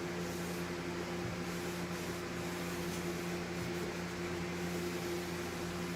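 Electric fan set in a window, running steadily: an even hum with two steady low tones under a hiss.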